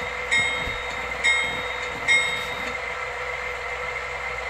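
Sound decoder of a model GE Dash 9 diesel locomotive playing its locomotive bell. Three bright dings come a little under a second apart over a steady engine hum; the bell stops about two and a half seconds in and the engine hum runs on.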